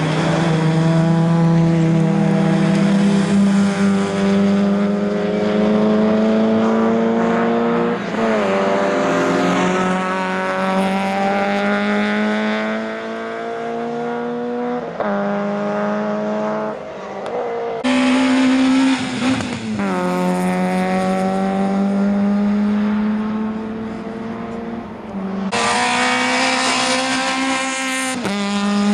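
Rally car engines under hard acceleration: each engine note climbs steadily for several seconds, then drops sharply at a gear change, over and over.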